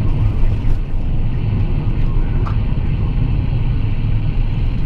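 Steady low rumble of road and engine noise heard inside a Mitsubishi car's cabin while it is being driven.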